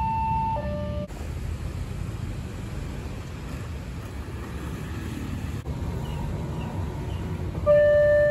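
Motorcycles and road traffic rumbling at a railway level crossing. About three-quarters of the way through, the crossing's electronic warning alarm starts loudly, holding a low tone that steps up to a higher one about two seconds later: the signal that a train is coming and the barriers are about to come down. A high alarm tone cuts off about a second in.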